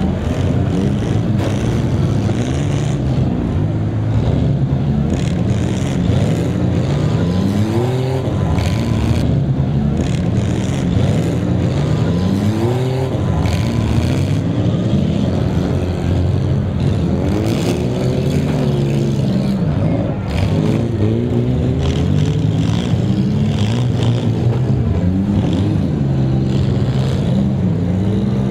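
Many six-cylinder demolition derby cars running at once, their engines revving with pitches rising and falling over one another, and scattered metal crunches as cars hit each other.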